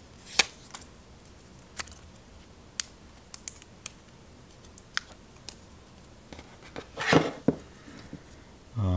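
Scattered small clicks and ticks of fingers handling thin adhesive tape strips against a phone's edge, with a brief louder rustle about seven seconds in.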